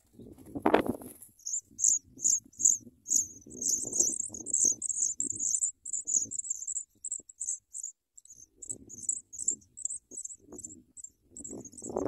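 Pipit nestlings begging: a rapid run of thin, high-pitched peeping calls that starts about a second and a half in and keeps going with short breaks. Under it is rustling in dry grass, loudest in a sharp burst about a second in.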